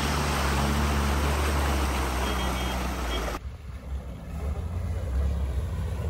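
Off-road vehicle's engine running under load, its pitch rising a little then holding, over a loud wash of driving noise. About three and a half seconds in the sound cuts suddenly to a quieter, lower engine rumble.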